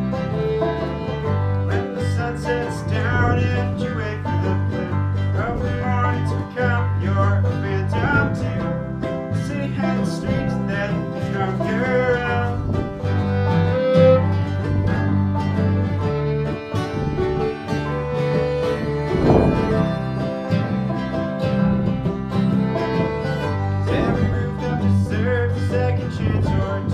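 Acoustic string band playing a tune, with banjo and guitar picking together.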